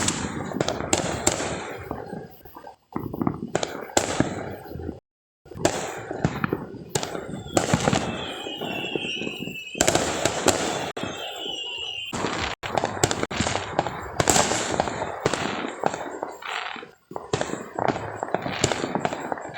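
Consumer fireworks and firecrackers going off in many quick, overlapping bangs and crackles, with a high wavering whistle for a few seconds in the middle.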